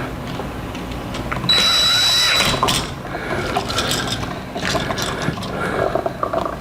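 Tool clicks and rattles during work on an electrical outlet. About one and a half seconds in, a louder whirring with a steady high whine lasts about a second.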